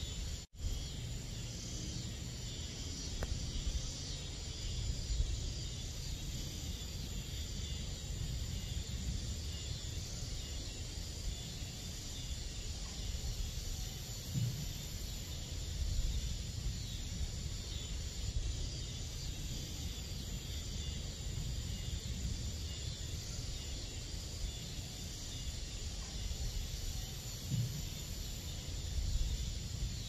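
Summer-night insect chorus, mainly crickets, a steady high-pitched trilling over a low rumble. The sound drops out for a moment about half a second in, and two short low sounds stand out near the middle and near the end.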